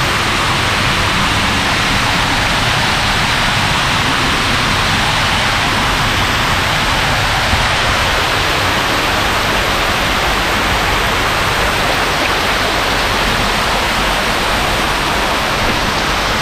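Curtain of water pouring off the rim of a conical fountain canopy and splashing into the pool below: a loud, steady rush like standing in rain.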